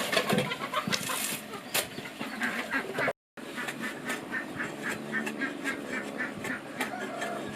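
Ducks quacking. After a short break about three seconds in, a quick, even run of quacks follows.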